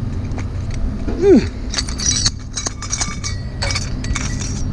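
Pieces of scrap metal clinking and knocking as they are handled and sorted, with one short vocal sound that rises and falls in pitch about a second in.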